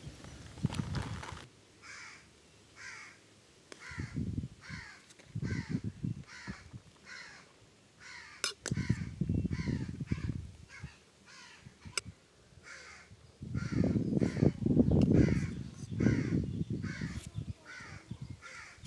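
A crow cawing over and over, about two calls a second, each call falling in pitch. Bursts of low rumbling noise come and go alongside it and are loudest in the last few seconds.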